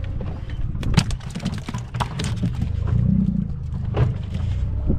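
Wind rumbling on the microphone aboard a small fishing boat at sea, with scattered sharp knocks and clicks, the loudest about one and two seconds in and again near four seconds.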